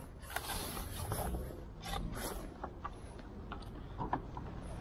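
Close handling noise from a landing net being worked by hand: scrapes and rustles of the mesh and clothing, with a few small clicks.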